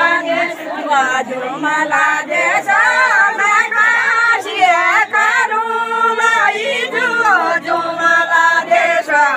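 A group of women singing a Kumaoni jhora folk song together, in long held notes that bend in pitch.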